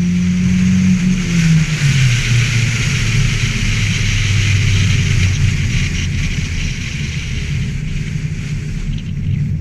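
Ford Festiva trackcross car's engine running hard, its pitch dropping about a second and a half in as the revs come down and then holding steady, under a constant hiss.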